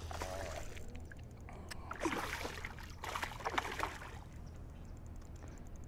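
A hooked smallmouth bass thrashing and splashing at the water's surface beside the boat, in a few uneven splashes and sloshes.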